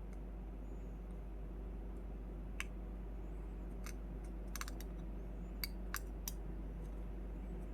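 A few scattered light clicks and taps of a small metal balisong bushing being dipped in epoxy and pressed against a thin metal piece, over a steady low hum.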